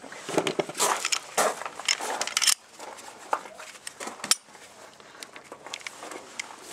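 Handling noise from a Glock 17T training pistol being picked up and worked in the hands: dense rattling and clicking of its polymer frame and steel slide for the first couple of seconds, then quieter scattered clicks with one sharp click about four seconds in.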